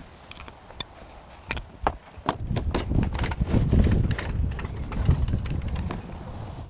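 Folding camper trailer being closed up by hand: a plastic step stool set down and the hinged roof panel pushed down, giving a string of irregular light knocks and clicks. A low rumble sits under the knocks from about two seconds in.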